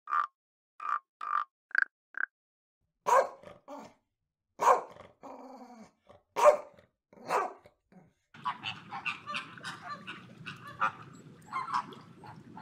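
A frog gives a few short croaks, then a dog barks four times, loud and spaced out. From about eight seconds in, a flock of flamingos keeps up quick, overlapping goose-like honking over a steady background hiss.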